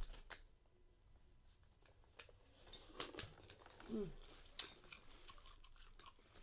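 Faint, scattered clicks and cracks of crab and lobster shells being handled and picked apart while eating, with a short falling hum from one of the eaters about four seconds in.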